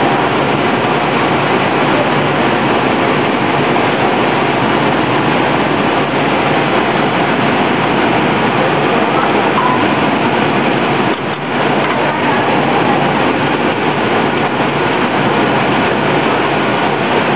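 Hot oil sizzling steadily as vegetable patties fry in the ring molds of an industrial frying machine.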